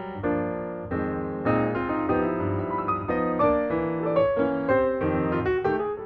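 Background piano music: a keyboard melody over chords, the notes changing every fraction of a second.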